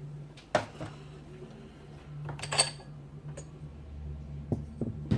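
Small steel parts of an NP208 transfer case clinking against each other and on metal as they are handled during teardown: a handful of separate sharp clinks, the loudest about two and a half seconds in and a few more near the end, over a steady low hum.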